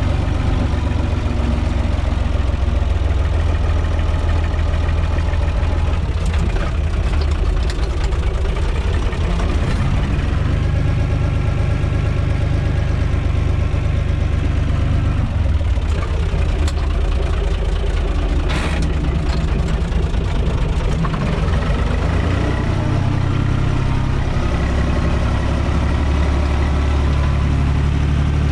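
UTB 445 tractor's diesel engine running steadily, heard from inside the cab, its note shifting a few times.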